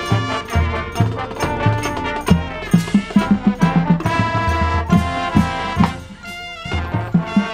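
Marching band brass playing a lively tune over a steady drum beat, with a short break about six seconds in before the band comes back in.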